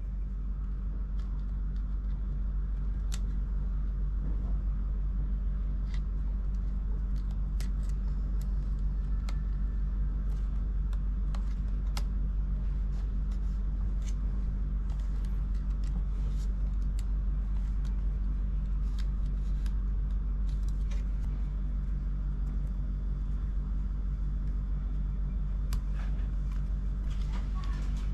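Steady low hum with many small, faint clicks and taps scattered through it, the kind made by small tools and parts during a laptop teardown.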